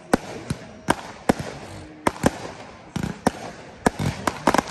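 Aerial fireworks going off in a rapid, irregular string of sharp bangs, about a dozen in a few seconds.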